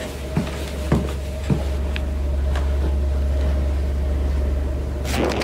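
Slow, evenly spaced footsteps, about two a second for the first few seconds, over a steady low hum. A louder noisy scrape or rustle comes near the end.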